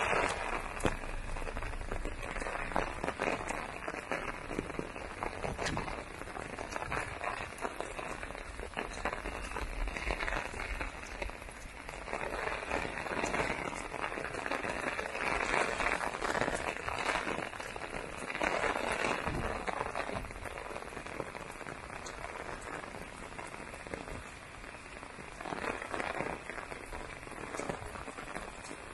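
Heavy rain falling: a dense, steady patter of drops that swells and eases several times.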